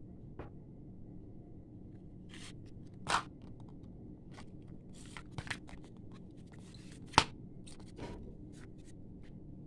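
Aluminium foil blister strip of tablets handled and turned over by hand: scattered crinkles and scrapes of the foil, the loudest a sharp crackle about seven seconds in.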